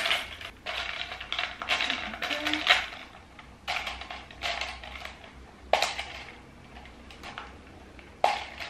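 Plastic packaging bag rustling as a plastic octopus-shaped hanging clothes dryer is pulled out, then its hard plastic arms and clip pegs clacking against each other in a handful of sharp knocks as it is untangled.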